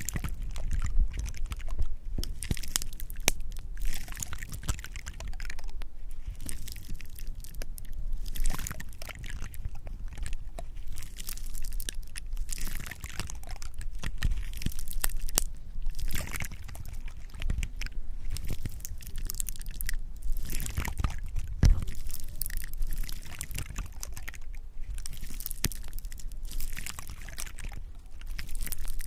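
Close-miked ASMR trigger sounds: a dense run of irregular wet clicks and crackles with a liquid, dripping quality.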